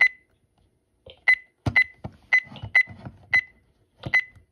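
Key beeps from a RadioShack 12-258 weather radio as its menu buttons are pressed: about six short high beeps, each with a small click, irregularly spaced roughly half a second to a second apart.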